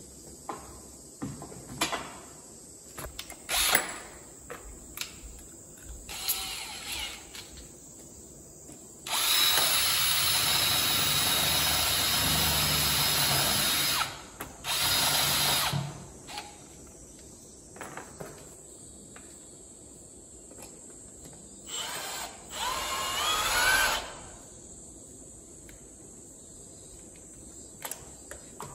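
Electric drill running in several bursts: one steady run of about five seconds near the middle, a short one just after, and another near the end whose pitch rises, with scattered clicks and knocks of handling in between.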